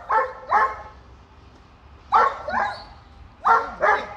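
Leashed shepherd-type protection dog barking in quick pairs, six barks in all, at an approaching man during a protection assessment.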